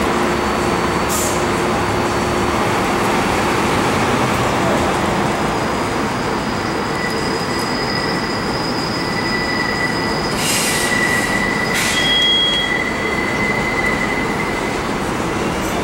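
Elevated subway train running overhead on the steel structure, a steady loud rumble, with high-pitched steel wheel squeal setting in about six seconds in and holding for most of the rest. A few short hisses cut through around the middle.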